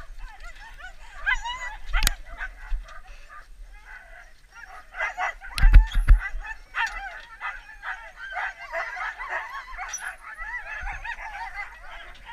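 A harnessed team of sled dogs yelping and barking all at once, many rising-and-falling yelps overlapping: the excited clamour of sled dogs waiting to be let go. A sharp knock about two seconds in and a cluster of heavy thumps about halfway through.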